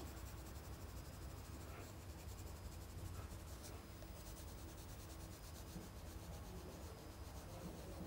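Faint scratching of a colored pencil shading on sketchbook paper, over a low steady hum.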